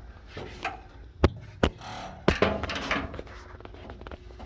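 A few sharp knocks and clunks with some shuffling and rubbing, as a person crawls under the truck and bumps against its metal.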